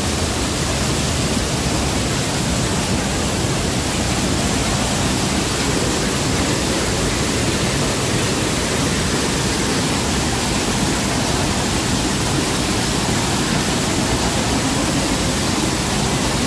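Waterfall pouring: a loud, steady, even rush of falling water.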